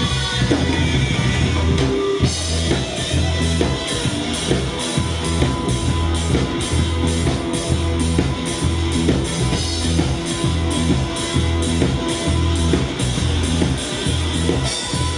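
Live rock band playing an instrumental passage: electric guitar and bass. A drum kit's steady beat, with cymbal strokes a bit over two a second, comes in about two seconds in.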